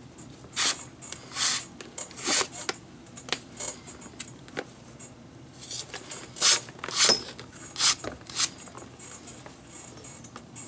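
Leather lace being pulled through the lace holes of a Mizuno baseball glove's trap-eze web: a series of short rasping swishes as each length of lace is drawn tight. The swishes are loudest about six to eight seconds in.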